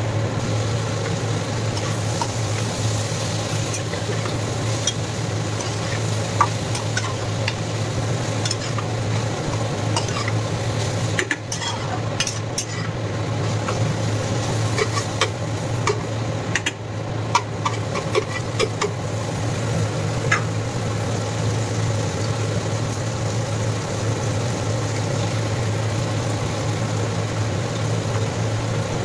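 Sliced ridge gourd frying and sizzling in a nonstick pan, stirred with a spatula that clicks and scrapes against the pan now and then, mostly in the first two-thirds. Under it runs the steady low hum of an induction cooktop.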